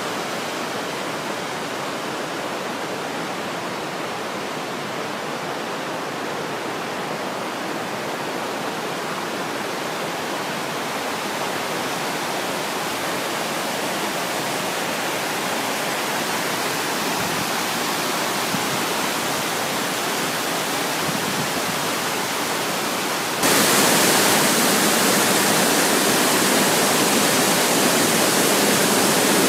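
Mountain stream rushing over stones: a steady rush of water that slowly grows louder. Near the end it jumps suddenly louder and brighter, the water of a small waterfall splashing close by.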